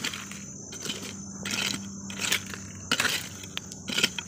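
Small metal hand rake scraping and flicking through dry, gravelly soil and leaf litter: a string of irregular scratchy strokes with grit scattering.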